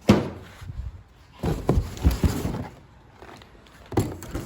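Knocks and scraping as hard objects are handled and set down: a sharp knock at the start, a cluster of knocks and scrapes about a second and a half in, and another knock near the end.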